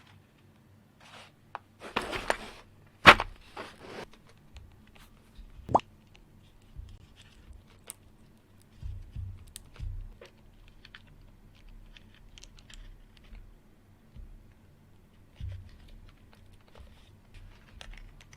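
Hands handling and fitting mechanical keyboard parts. Scattered clicks and knocks, with a short rustling burst about two seconds in and a sharp knock just after it.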